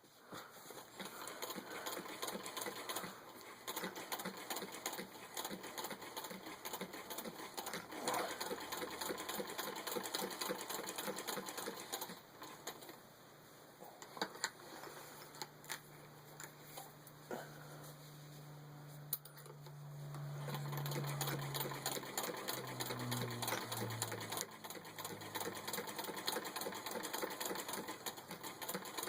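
Treadle-driven 1905 Singer 15-30 sewing machine stitching through six layers of denim, its needle and shuttle mechanism clattering in a rapid, even rhythm. It goes quieter for a stretch in the middle, then runs on louder again.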